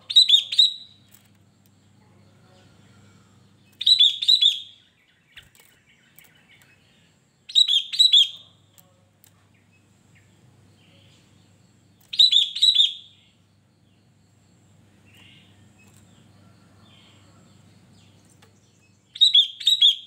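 Sooty-headed bulbul (kutilang) singing: five short, bright song phrases, each about a second long, spaced a few seconds apart.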